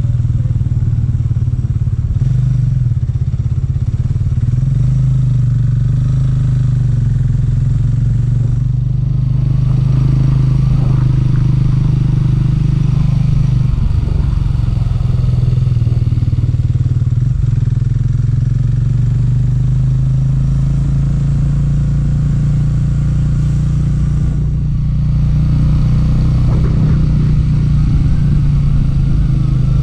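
Motorcycle engine running at a steady cruise, its low note rising and falling slightly with the throttle.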